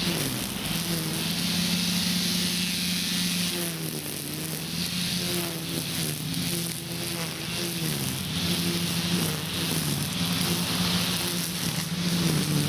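A small engine running steadily, its pitch dipping and rising now and then.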